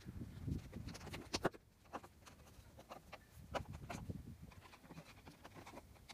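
Rubber car door seal being pressed back onto the A-pillar flange by hand over a tucked-in wire: irregular soft rubbing with scattered light clicks and dull thuds, one sharper click about a second and a half in.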